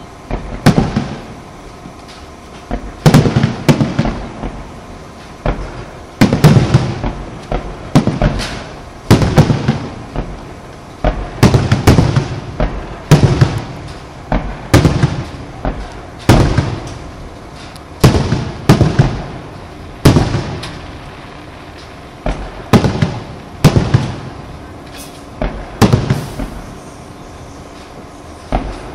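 Aerial fireworks shells bursting one after another, sharp bangs about one or two a second, each trailing off in a rolling echo.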